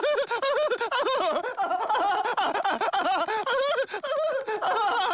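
High-pitched cartoon baby's voice giggling and whooping without words, the pitch bouncing up and down rapidly and without a break.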